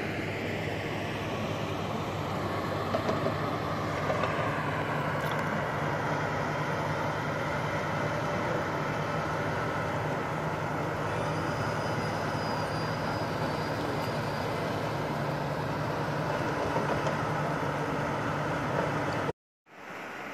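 Diesel engine of heavy construction machinery running steadily, a low even hum under broad rumbling noise. It cuts off abruptly about a second before the end, and a quieter rushing sound follows.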